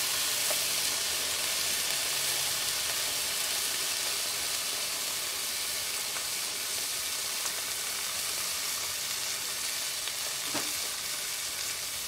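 Smash burgers frying on a flat-top griddle under an aluminium foil pan: a steady sizzle from the meat and the steam trapped to melt the cheese, easing off slightly over the seconds.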